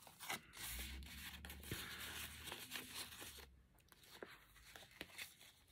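Faint rustling and rubbing of paper tags and cardstock as they are handled and slid into a journal pocket, with a few light clicks; it dies down about two-thirds of the way through.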